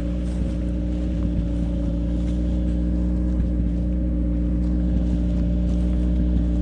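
Motor vehicle engine running at a steady speed while moving slowly over rough ground, a low even drone that holds its pitch.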